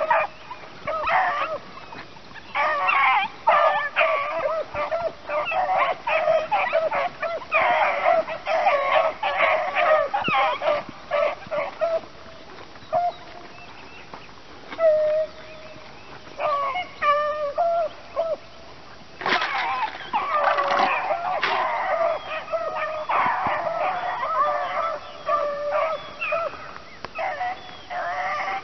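A pack of beagles giving tongue while running a scent track, many hound voices baying and chopping over one another. About twelve seconds in the cry thins to a few scattered calls. About nineteen seconds in the full pack opens up again.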